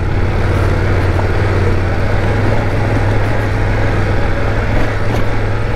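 BMW F 850 GS parallel-twin engine pulling steadily at low speed under load, carrying rider and passenger up a steep dirt track, with a steady low drone and no change in revs.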